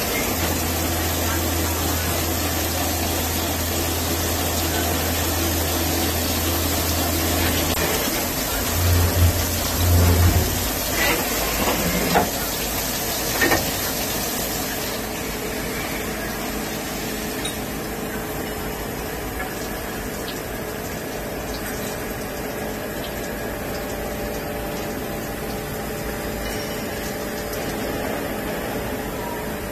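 Swiss-type CNC lathe running with cutting coolant spraying and splashing over the tools and workpiece, over a low motor hum. The hum stops about ten seconds in, a few short knocks follow, and then a quieter, duller steady noise goes on.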